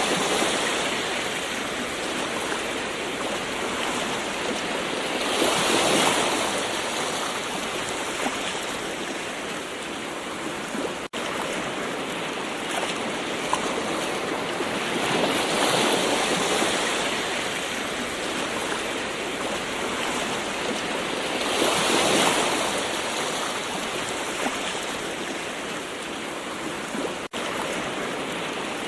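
Gentle ocean waves washing in, a steady hiss of surf that swells and eases every several seconds. The sound drops out for an instant twice.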